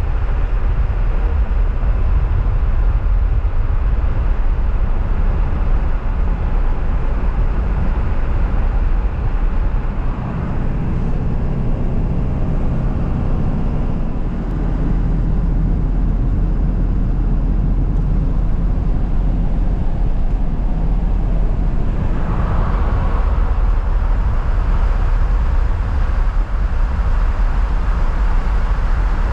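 Pickup truck driving at road speed: a steady low engine and tyre rumble, with the tyre hiss growing brighter about two-thirds of the way through.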